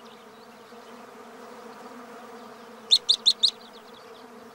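Steady drone of a swarm of black flies buzzing. About three seconds in, four quick, sharp, high chirps in a row cut through it.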